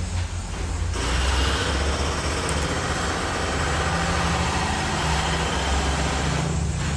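Construction-site machinery: a heavy engine running steadily with a low hum, and a broad noisy rush over it that grows louder about a second in.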